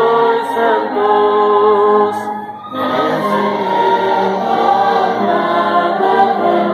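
Church congregation singing a hymn in unison with instruments accompanying; the sound breaks briefly between lines about two and a half seconds in, then carries on.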